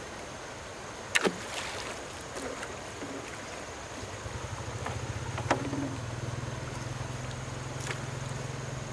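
Two sharp knocks about a second in, then a low engine-like hum with a quick even pulse that starts about four seconds in and runs steadily, with single knocks over it twice more.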